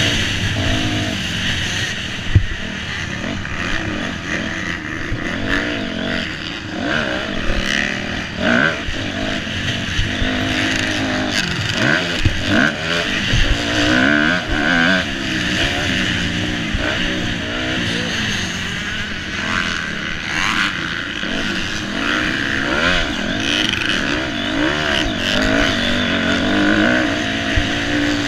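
Motocross dirt bike engine at race pace, revving up and dropping again and again through the gears, heard from the rider's helmet. A few sharp knocks come over the engine.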